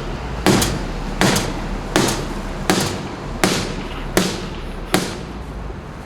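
A club striking a mini fridge over and over: about eight sharp blows, roughly one every three-quarters of a second.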